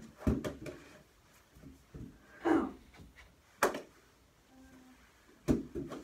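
Mini hockey sticks and a ball knocking during knee hockey: a string of irregular sharp clacks and thuds.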